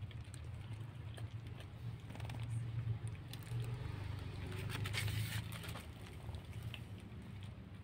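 Several cats eating dry kibble and wet food off a plastic bag: small irregular crunching and clicking, with a louder rustle around five seconds in, over a steady low hum.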